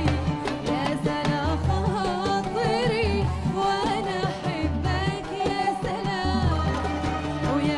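A woman singing a Middle Eastern song in a wavering, ornamented vocal line over a live band, with percussion strikes and low bass notes.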